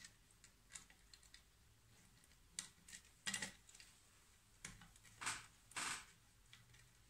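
Faint scattered clicks and rustles of a thin wire being worked into the terminal of a small plastic switch.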